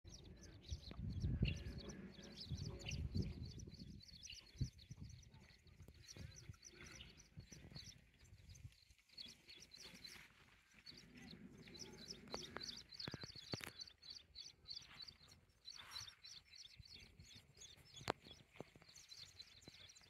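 Faint outdoor ambience of small birds chirping, with short high chirps repeating throughout. Low buffeting on the microphone in the first few seconds, and a single sharp click near the end.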